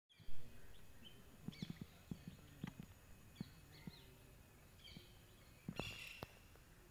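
Birds chirping and calling in short, repeated notes over a steady background hiss, mixed with scattered soft low knocks and bumps; a louder bump comes right at the start and a cluster of knocks about six seconds in.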